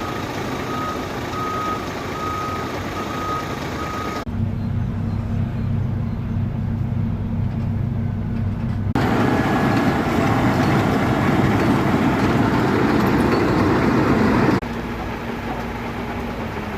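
Heavy road-planing machinery running, with a reversing alarm beeping steadily for the first four seconds. The sound changes abruptly at about four, nine and fifteen seconds in: first a muffled engine drone, then louder, denser machine noise, loudest between nine and fifteen seconds.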